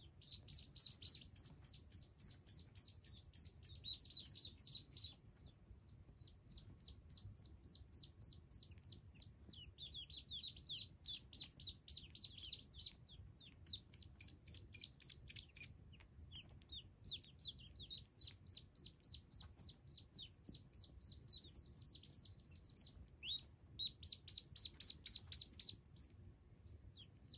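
Call duck ducklings peeping: fast runs of short, high peeps, about four a second, each dipping slightly in pitch, broken by brief pauses between runs.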